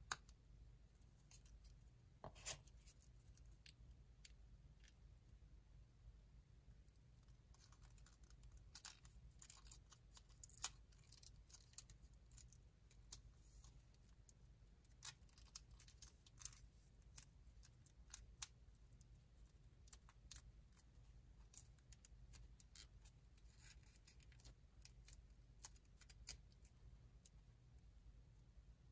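Faint, irregular crinkles and ticks of folded origami paper being handled and pressed together, with a few louder ones, over a low steady hum.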